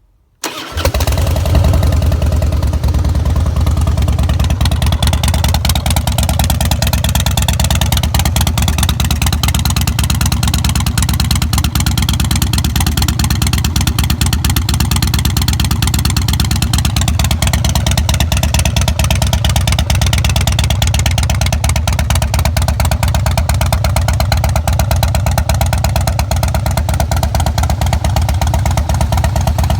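Harley-Davidson Fat Boy's fuel-injected Twin Cam 88B V-twin starting up about half a second in, catching within a second, then idling steadily.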